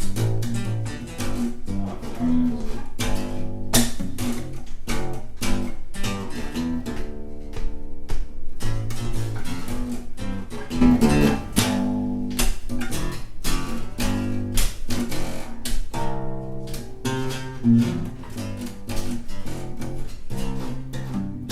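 Acoustic guitars strumming chords over an acoustic bass guitar playing a bass line, in an instrumental passage without singing.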